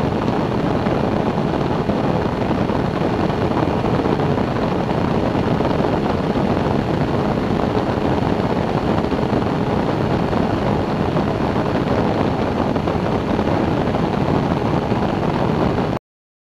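Weight-shift microlight trike in flight: the steady drone of its engine and pusher propeller mixed with wind rushing over the microphone. It cuts off suddenly near the end.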